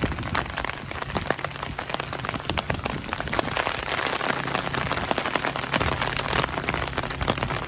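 Heavy stormy rain falling: a dense, steady patter of many sharp drop impacts.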